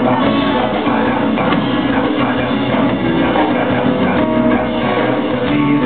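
Live band playing an instrumental passage of a jazz-tinged song: grand piano and acoustic guitar with drums behind them, at an even level with no singing.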